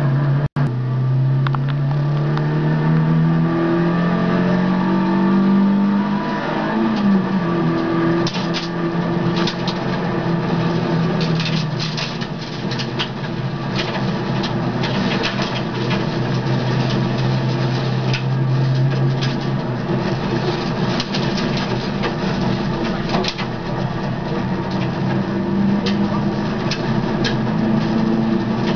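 Peugeot rally car's engine heard from inside the cabin at full effort, rising in pitch for about six seconds, dropping sharply at a gear change, then pulling steadily. From about eight seconds in, gravel from the loose stage surface clicks and rattles against the car.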